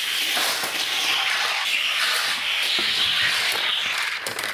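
Toy car rolling down a plastic race track, a steady rushing hiss with slight swells that cuts off abruptly at the end.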